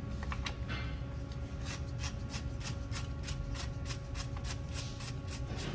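Hand ratchet wrench clicking in quick even strokes, about five clicks a second, as a bolt on the EGR valve is loosened, after a few fainter scrapes of the tool.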